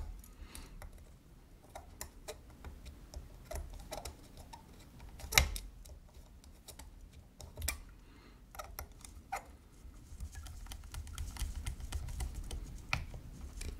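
Scattered small metallic clicks and taps as the brass top cap and its small screws are fitted onto a mechanical box mod by hand, irregular, with the sharpest click about five seconds in.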